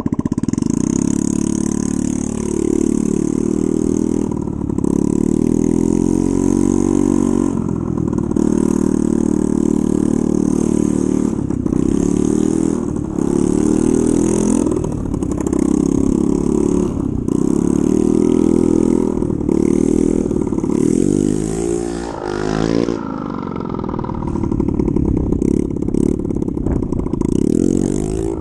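2007 Honda Ruckus scooter's small single-cylinder engine, running through a broken exhaust, revving up and dropping back again and again, about every two seconds, as the throttle is opened and shut.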